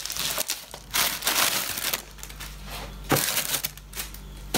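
Plastic bubble wrap and packing film crinkling and rustling in uneven spells as a parcel is unpacked by hand, with a sharp crackle about three seconds in.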